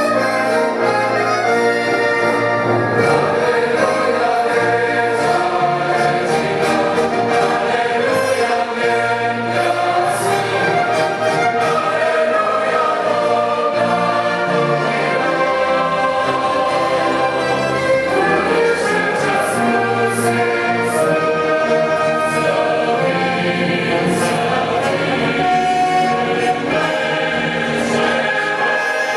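Christian worship music: a choir singing with orchestra and brass.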